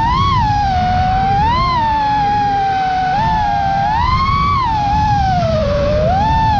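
FPV quadcopter's brushless motors and T-Motor T5143S propellers whining, the pitch swelling up and falling back again and again as the throttle is worked, over a low rushing noise.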